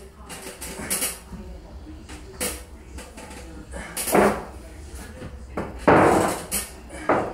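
A drywall knife scraping and swiping wet joint compound across a ceiling to apply a skip-trowel texture, in separate short strokes with pauses between. The longest and loudest stroke comes about six seconds in.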